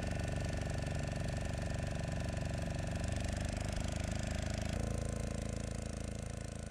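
An engine running steadily with a fast, even throb. Its pitch shifts slightly about five seconds in, and it begins to fade out near the end.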